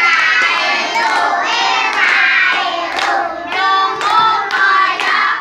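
A group of young kindergarten children singing an Indonesian children's song together, clapping their hands in time.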